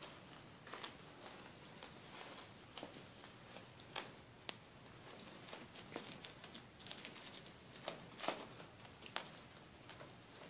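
Faint, scattered clicks and rustles of Yorkshire terrier puppies scrabbling and tussling on a paper puppy pad, with a few sharper ticks about four, eight and nine seconds in.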